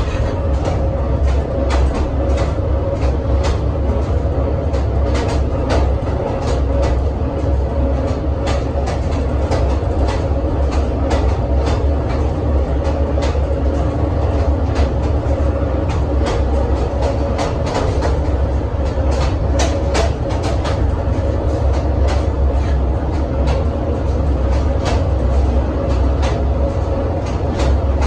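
Inside a MÁV Bzmot two-axle diesel railcar under way: steady running noise with a strong low rumble and a constant hum. Frequent sharp clicks and rattles from the wheels on the track run through it.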